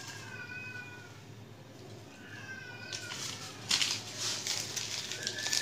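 A cat meowing: three drawn-out calls, the last near the end. A burst of rustling, crackling noise from about three seconds in is the loudest sound.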